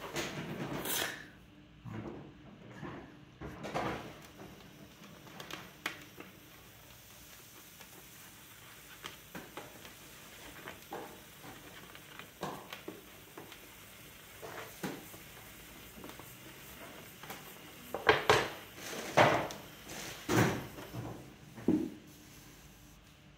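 Trimming tool scraping leather-hard terracotta clay on a large bowl, in short, separate strokes and light knocks, with a cluster of louder scrapes near the end.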